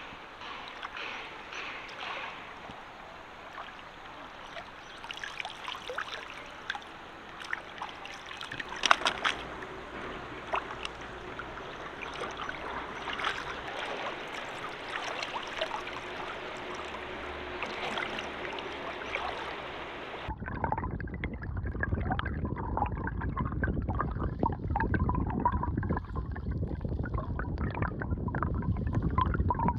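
Shallow water trickling and sloshing, with scattered small clicks and knocks. About two-thirds of the way through it cuts abruptly to a louder, steadier rush of water.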